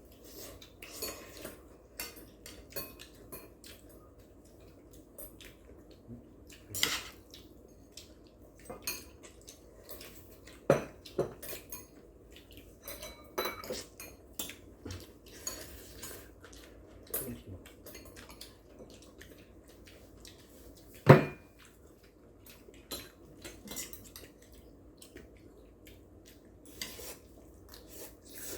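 Eating utensils clinking and tapping against bowls and plates at a meal of noodles: scattered irregular clicks, one sharper clink about two-thirds of the way through.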